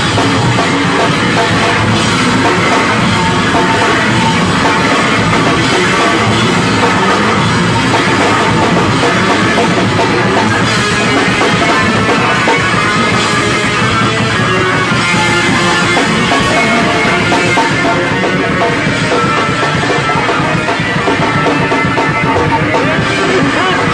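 Live noise rock from a bass-and-drums duo: heavily distorted bass guitar over fast, pounding drums, loud and dense without a break.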